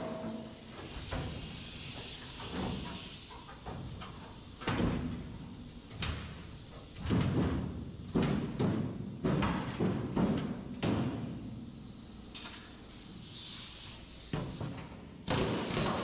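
Irregular thumps and metallic bangs of a steel rear quarter panel being pried and pulled loose from a car body by hand, with a cluster of heavier knocks in the middle and a couple of brief hisses.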